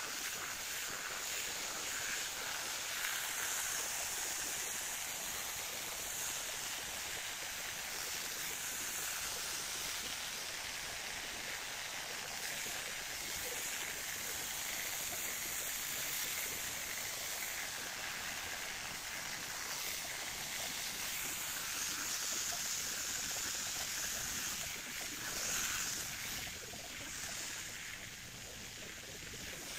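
Electric hedge trimmer running steadily as it clips a pine's foliage, its sound dropping slightly near the end.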